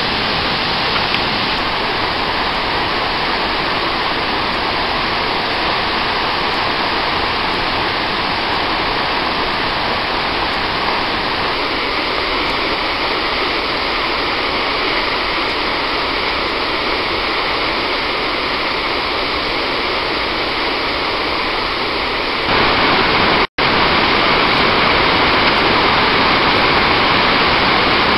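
Steady rushing of a waterfall and river whitewater. About two-thirds of the way through, it cuts out for an instant and comes back a little louder.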